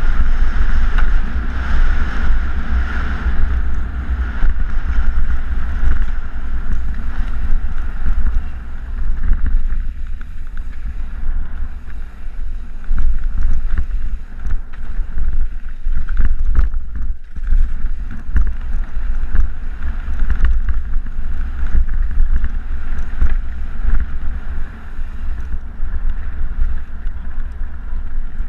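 Wind buffeting the microphone of a bike-mounted action camera, over the steady clatter of mountain-bike tyres rolling fast over hard dirt and loose gravel.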